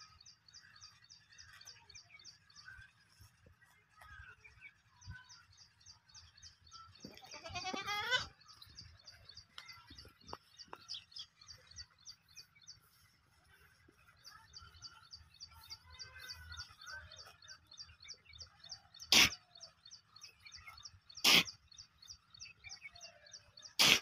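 Goat kids feeding, one of them bleating once about a third of the way in. A fast, high-pitched chirping repeats in the background, and three sharp knocks come in the last few seconds, louder than the bleat.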